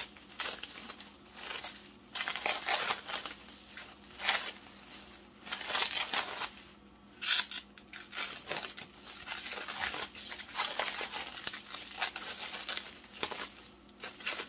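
Plastic wrap crinkling in irregular bursts as it is peeled off a wrapped item layer by layer.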